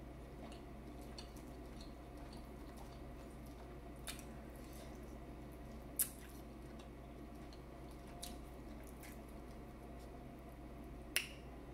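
Someone eating a seafood boil: soft wet squishing and chewing, with scattered faint clicks and two sharper clicks, about six seconds in and near the end, over a steady low hum.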